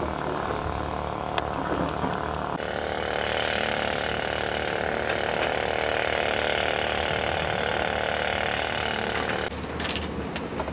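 A steady mechanical running noise that changes abruptly about two and a half seconds in and again near the end, with a few sharp clicks.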